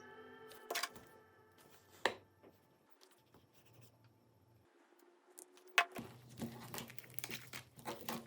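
Scattered sharp clicks and light taps of small hand tools working on a phone's casing and parts, denser near the end. A held music chord fades out at the start.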